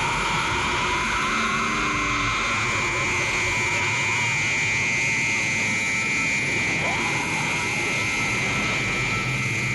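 Film sound effect of the time-warp storm engulfing the ship: a loud, steady rushing noise with a high whine held throughout, and a short rising tone about seven seconds in.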